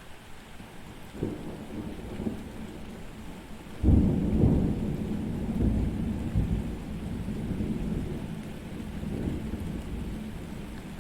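Thunderstorm with steady rain. A faint crack comes about a second in, then a loud thunderclap a little before four seconds that rumbles on and slowly fades.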